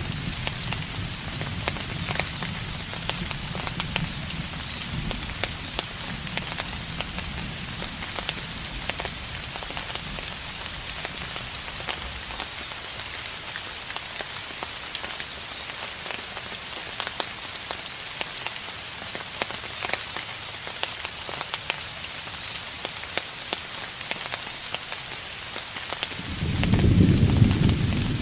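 Steady rain hissing, with many small drop ticks, and distant thunder. A low rumble dies away over the first few seconds, and another, louder roll of thunder comes in near the end.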